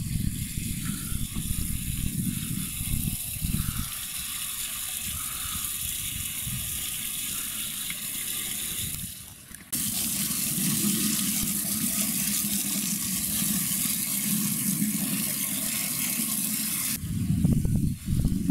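Artesian well water running from its spouts and splashing into the stone basin and into a plastic bottle being filled, with wind rumbling on the microphone. The sound changes abruptly about ten seconds in.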